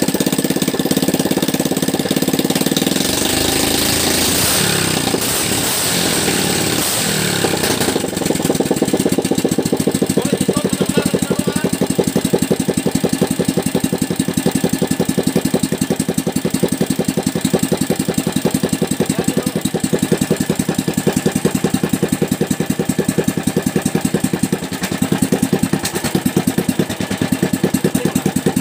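Single-cylinder small engine running, revved up and dropping back a few seconds in, then settling into a steady, fast, even idle.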